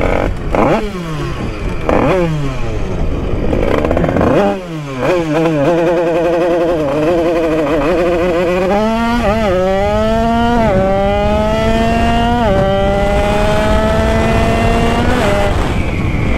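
Two-stroke Derbi moped engine with an Italkit 80cc kit, revved up and down several times, then accelerating hard at full throttle. It climbs through the gears, its pitch rising steadily and dropping at each of four quick upshifts, about 9, 10.5, 12.5 and 15 seconds in.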